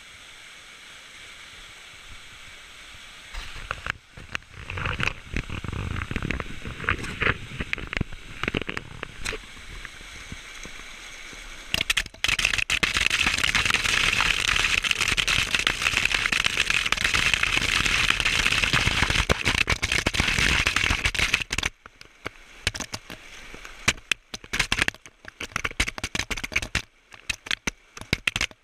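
Waterfall water splashing straight onto the microphone: a faint steady rush at first, crackling spray from about three seconds in, a dense loud rush from about twelve seconds in that stops suddenly about nine seconds later, then scattered crackling splashes.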